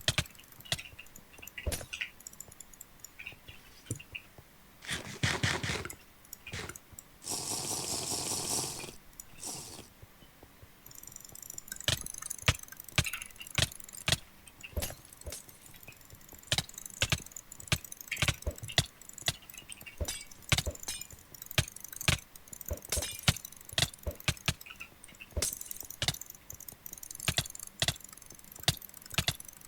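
Computer mouse buttons clicking fast and unevenly in quick clusters, as from a click macro. Twice, about five seconds and seven to nine seconds in, a longer scraping noise covers the clicks.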